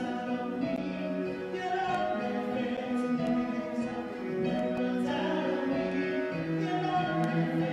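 A woman and a man singing a slow worship song together, accompanied by a bowed cello and keyboard.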